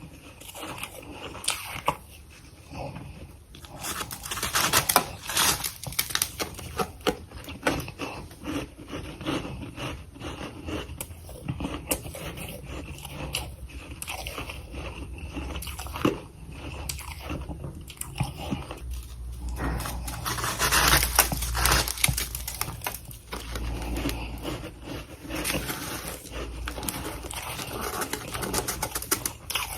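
Close-miked biting and chewing of powdery freezer frost: dense, irregular crunching and crackling, loudest and fullest a little past the middle.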